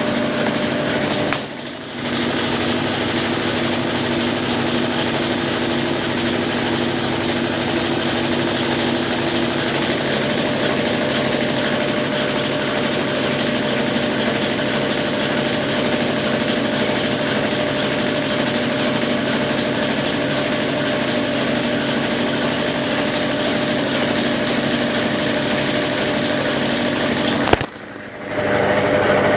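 Consul Facilite 10 kg top-load washing machine agitating a load in its wash stage, its motor and Brastemp BWL09 agitator running with a steady hum. The drive stops briefly about a second and a half in, and again near the end just after a click.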